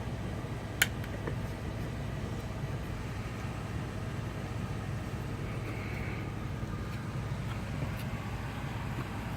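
Steady low background hum, with one sharp click about a second in and a few fainter clicks later, as small muzzleloader trigger parts are handled and fitted into the wooden stock.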